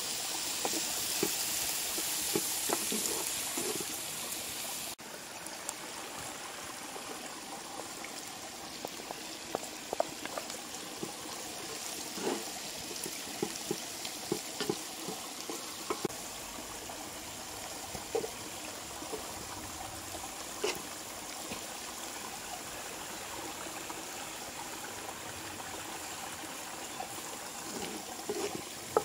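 Steady rushing of flowing water, with scattered small clicks and crackles over it; it drops a little in level after a cut about five seconds in.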